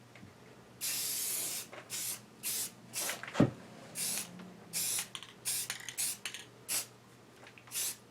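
Spray paint hissing out in about a dozen short bursts, the first about a second long and the rest quick, as parts are coated. A single knock about halfway through.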